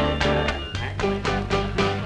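Instrumental music with a steady beat over a bass line.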